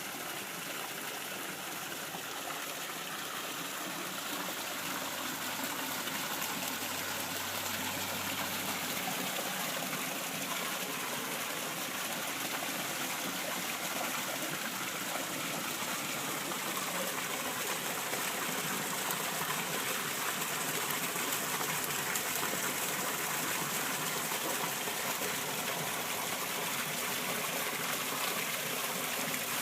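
Garden waterfall: water pouring and splashing steadily over the falls.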